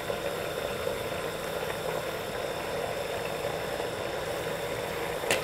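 Bacem seasoning sauce boiling in a pot on a gas stove, a steady bubbling at full boil. A short sharp knock comes near the end.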